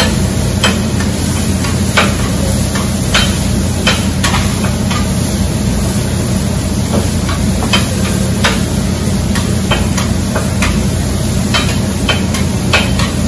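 Metal spatula clanking and scraping irregularly on a flat-top griddle as chopped cheesesteak meat is worked, over the steady sizzle of the frying meat and a low hum.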